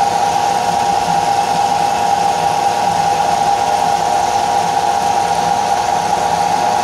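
Table-top wet grinder running steadily, its stone rollers turning in the steel drum and grinding soaked idli rice into smooth batter: an even motor hum with a grinding rush over it.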